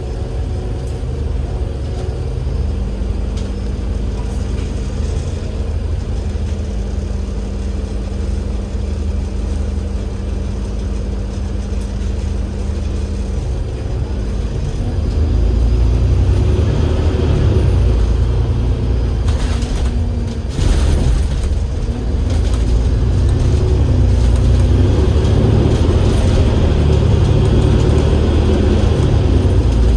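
Diesel engine of an Enviro500 MMC double-deck bus (Cummins L9E with ZF Ecolife automatic gearbox) running, with a steady low hum over a deep rumble at first. About halfway through it grows louder as the bus pulls harder, with a brief dip about two-thirds of the way in, like a gear change.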